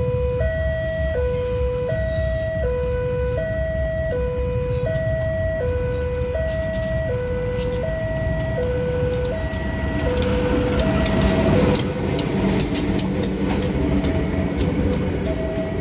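Railway level-crossing warning siren sounding a two-tone hi-lo wail, switching pitch about every three-quarters of a second. About ten seconds in, a train arrives and passes, with rumbling and a run of wheel clicks over the rail joints, while the siren keeps going.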